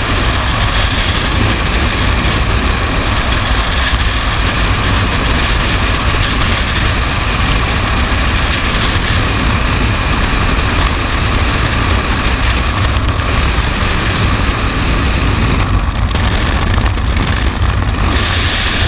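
Freefall wind noise: a steady, loud rush of air buffeting a helmet-mounted camera's microphone during a skydive, heaviest in the low rumble. The upper hiss thins briefly near the end.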